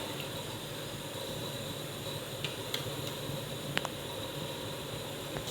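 Steady hiss in the kitchen as semolina cooks in milk on the stove, with a few faint light ticks.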